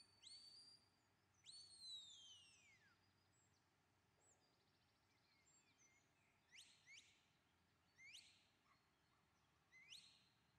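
Handler's herding whistle commands to a working sheepdog: short rising whistles that level off, a long falling whistle about a second and a half in, then several quick rising whistles in pairs near the end.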